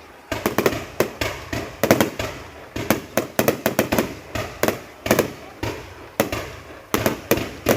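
Fireworks going off in a rapid, irregular string of sharp bangs, several a second, each with a short fading tail.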